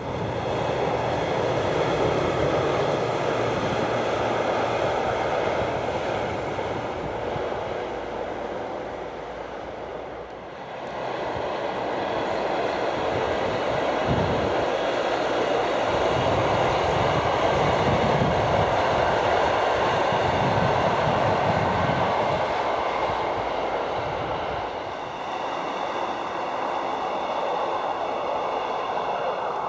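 Diesel multiple-unit passenger train running past while climbing the gradient, its engines working: a steady mechanical noise with a faint high whine. It dips briefly about ten seconds in, then rises again with a low rumbling.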